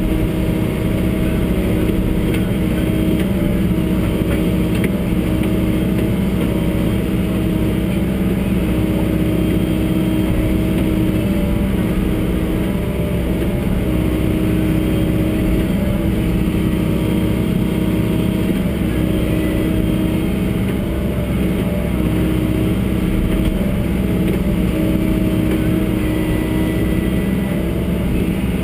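John Deere 75D excavator's diesel engine running steadily while the arm and bucket are worked, heard from inside the operator's cab.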